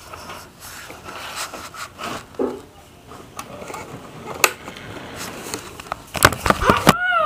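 Faint steady whir of a model train set with scattered clicks from the track and cars, and a cluster of sharper knocks about six seconds in.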